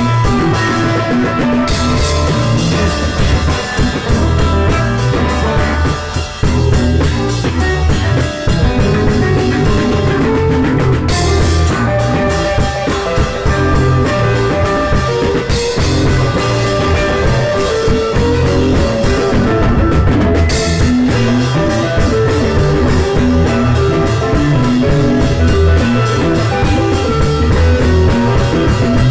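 Rock band playing an instrumental passage: drum kit and guitar, loud and continuous, with three sharp accents across the whole range about eleven, fifteen and twenty seconds in.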